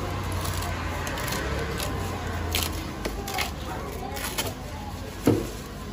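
Rustling and crinkling of a white packing sheet as it is peeled and unfolded from around a small aquarium tank, with one sharper knock about five seconds in.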